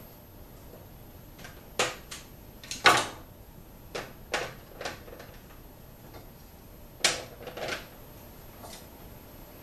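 Round plastic food-dehydrator trays knocking and clacking as they are handled and stacked, about eight separate sharp clacks with the loudest about three seconds and seven seconds in.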